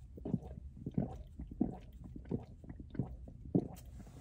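A person gulping water from a plastic bottle, a long run of soft swallows about every half-second.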